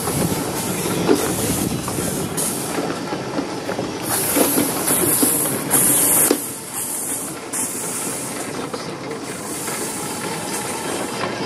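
7¼-inch gauge miniature train rolling past on the rails, with steam hissing from a live-steam locomotive. The hiss is strongest about halfway through.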